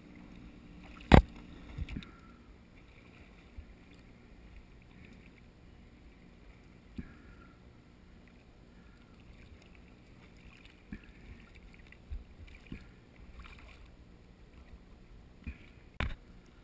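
Water lapping and splashing around a waterproof camera housing floating at the surface, with a sharp knock about a second in and another near the end.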